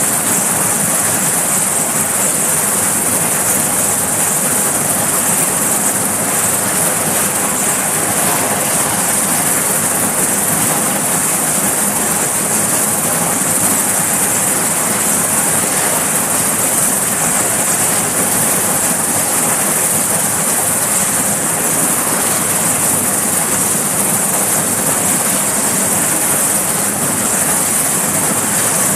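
Sikorsky S-61 helicopter's twin turboshaft engines and rotors running on the deck before lift-off: a steady high-pitched turbine whine over a constant rush of rotor and engine noise.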